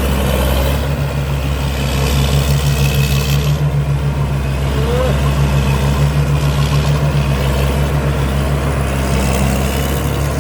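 Combine harvester's Cummins diesel engine running steadily, with a low, regular pulsing.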